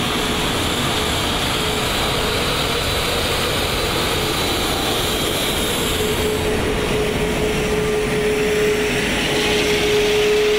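Lufthansa Airbus A380's Rolls-Royce Trent 900 jet engines running at taxi power as the airliner rolls past: a steady rushing jet noise with a droning hum that grows louder over the last few seconds as the engines come closest.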